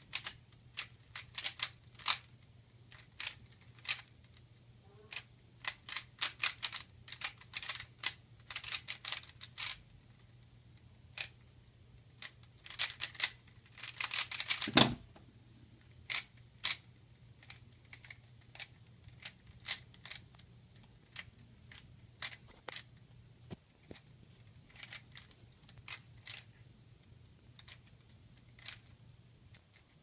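Plastic 3x3x3 speedcube being turned fast during a speedsolve: runs of quick clicks and clacks as the layers snap round, broken by short pauses, with a dense flurry and a louder knock about fifteen seconds in. A faint steady low hum sits underneath.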